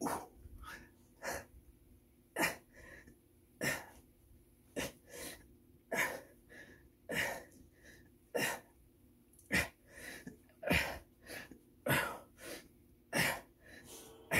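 A man breathing hard in time with push-ups: a sharp exhale about every second and a quarter, with a quieter inhale between each.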